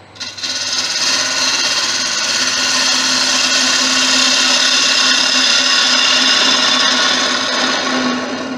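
A gouge cutting across the face of a wood blank spinning on a Laguna wood lathe, facing it off: a steady hiss of shavings over the lathe's low hum. The cut starts just after the beginning and stops near the end.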